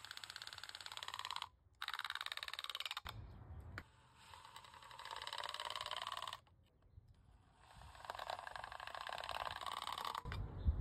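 Cordless drill driving screws through perforated metal strapping into a plywood base, running in four short bursts of a few seconds each with pauses between.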